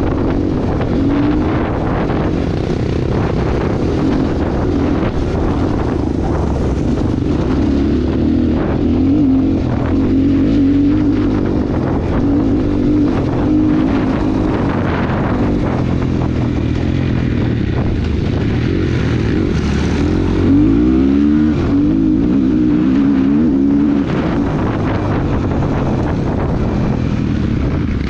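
Dirt bike engine running as the bike is ridden along a dirt trail. Its note rises and falls with the throttle, and the revs climb quickly about twenty seconds in.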